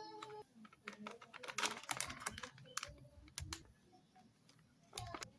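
Plastic cookie wrapper being handled and crinkled, giving an irregular run of sharp clicks and crackles that comes in clusters.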